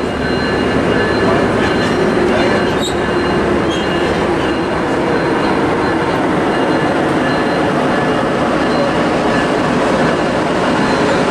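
Coaster commuter train rolling slowly past on its way out, a steady rumble of wheels on rail with faint high wheel squeal over it.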